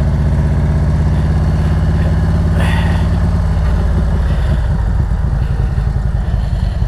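Harley-Davidson V-twin motorcycle engine running at a steady speed while riding, its note becoming less even about four and a half seconds in.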